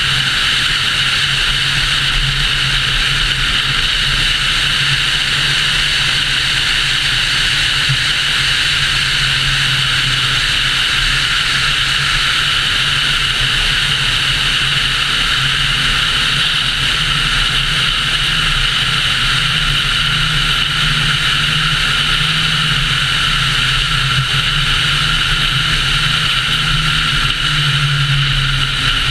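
Car driving at highway speed: a steady rush of wind and road noise over a low, even engine drone.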